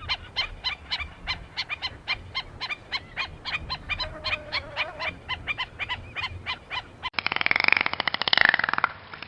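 Waterfowl calling in a quick, even run of short honking calls, about four or five a second, with one call held briefly near the middle. About seven seconds in, the sound cuts abruptly to a louder, harsher, buzzy call from a different animal.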